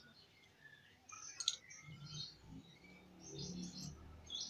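Faint chirping of small birds in short repeated high calls, with a sharp click about one and a half seconds in and soft low handling noise.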